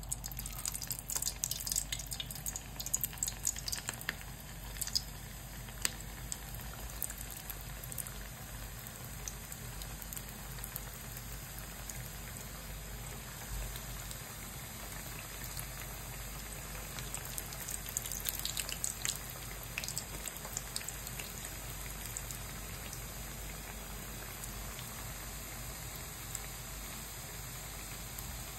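Hot oil sizzling and crackling around beef pastels (dough turnovers) frying in a pan. Louder bursts of crackling come in the first few seconds and again about two-thirds of the way in, as more pastels go into the oil.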